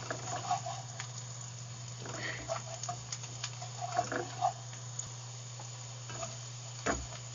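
Chopped onion and garlic sizzling softly in oil and butter in a frying pan, with a few light taps, over a steady low hum.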